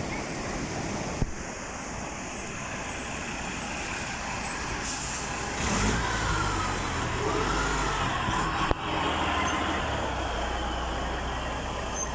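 Rushing floodwater at first, then a heavy semi-truck passing slowly and close by, its diesel engine running low. About five seconds in come two short hisses typical of air brakes, followed by a wavering squeal.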